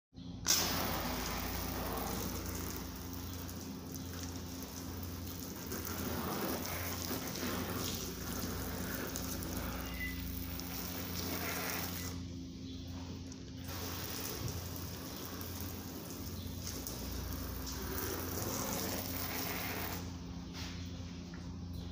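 Water spraying from a garden hose spray nozzle onto a car's plastic windshield cowl and wiper arms, as a steady hiss that stops for a second or so about halfway through and again near the end.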